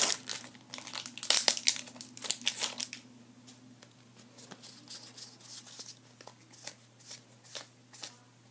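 Foil booster pack wrapper crinkling and tearing open, loudest in the first three seconds, then fainter scattered crinkles and clicks.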